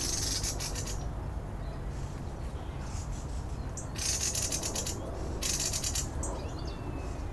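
Birds giving harsh, rattling alarm calls in short repeated bursts, about one every second or so, as they mob a roosting tawny owl. A steady low rumble lies underneath.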